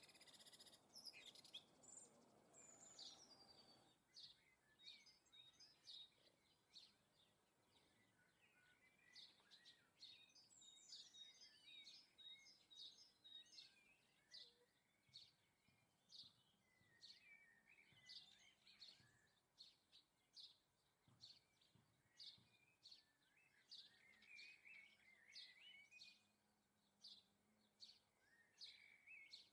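Faint songbird calls: many quick chirps and short warbled phrases, one after another. A soft rushing noise sits under them for the first few seconds.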